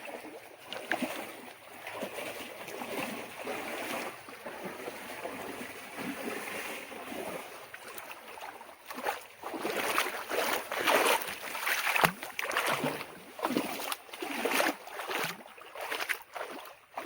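Water sloshing and splashing as someone wades through shallow water, with irregular, louder splashes from about nine seconds in.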